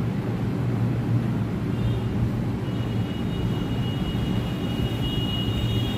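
Steady low rumbling hum, with faint thin high-pitched tones joining in about two seconds in and holding to the end.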